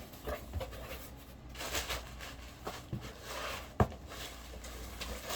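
Handling and opening a cardboard gift package: scattered rustling and scraping, with one sharp click a little before the four-second mark, over the steady low hum of a room air conditioner.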